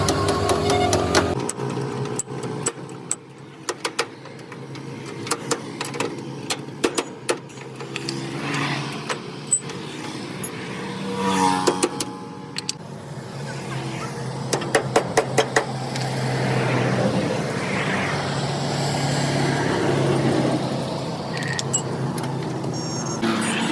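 A vehicle engine running, its deepest hum dropping away about a second in, with many scattered sharp clicks and knocks.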